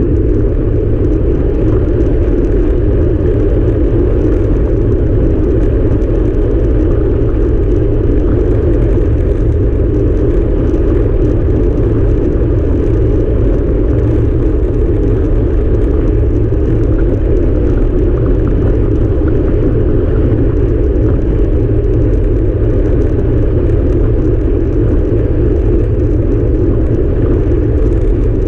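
Steady low rush of wind buffeting a handlebar-mounted camera's microphone, mixed with tyre noise on asphalt, from a time-trial bike riding at race speed.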